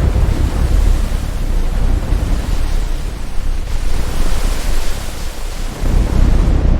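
Loud rushing of sea water and surf with a heavy deep rumble underneath, starting abruptly, dipping briefly and surging again near the end.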